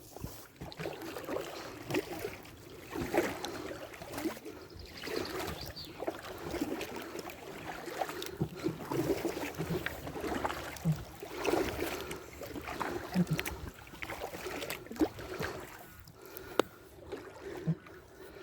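Kayak paddles dipping and splashing in lake water at an even paddling rhythm, about a stroke every second.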